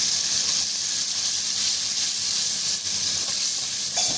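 Tomato paste sizzling in hot oil over fried onions in an aluminium karahi: a steady hiss. A short knock comes near the end as it is stirred.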